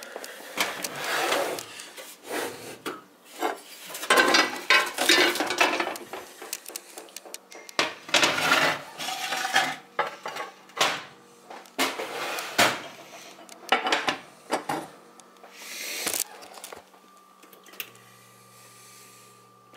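Cookware clattering and scraping as pans are pulled from the drawer under the oven and a cast-iron griddle is set down on a glass-top electric stove. The clatter dies away about three seconds before the end, leaving a faint steady hum.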